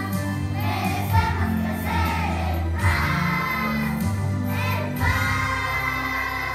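Children's choir singing in unison over an instrumental accompaniment with sustained bass notes.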